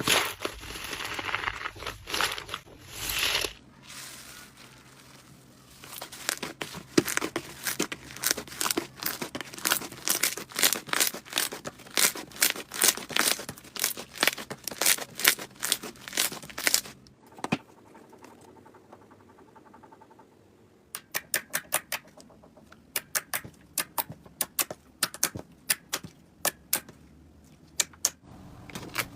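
Slime being played with in close-up: a crinkly rustle at first, then long runs of sharp clicks and pops, about three a second, with a short quiet gap before the clicking starts again.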